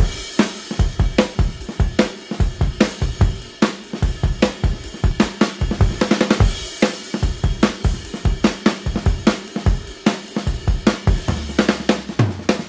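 Background music with a drum kit beat of steady snare, cymbal and bass drum hits; a low bass note comes in near the end.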